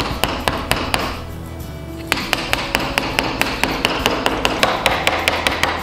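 Small hammer tapping small nails into the pine pieces of a kids' wooden kit: a few scattered strikes, then from about two seconds in a quick run of light taps, about five a second. The nails are hard to get in.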